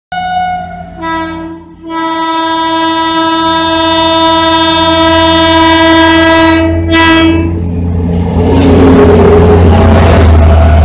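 Indian Railways electric locomotive's air horn sounding two short blasts and then one long blast of about six seconds over the low rumble of the approaching train. The rush and rumble of the Rajdhani coaches passing close at speed follows near the end.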